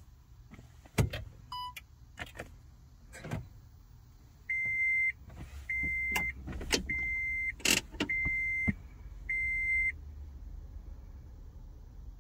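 2014 Toyota Prius Plug-in's dashboard warning chime beeps five times, evenly spaced, each a short high tone, as the car powers up with its warning lights lit. Sharp clicks come before and among the beeps, and a low hum runs under the chime.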